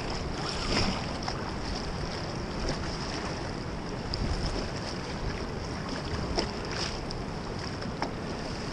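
Wind buffeting the microphone over the steady rush of a fast-flowing river, with a few faint clicks.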